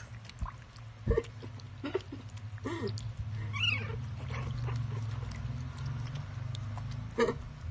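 Young Jack Russell puppies squeaking and whimpering, about five short calls that bend up and down in pitch, over a low steady hum.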